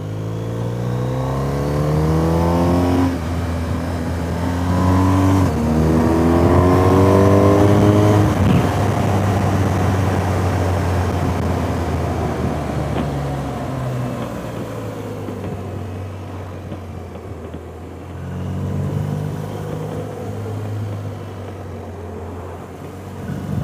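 BMW GS motorcycle engine accelerating up through the gears, its pitch climbing and dropping back at upshifts about three and five and a half seconds in. It then runs steadier under a rush of air noise, and picks up again near the end.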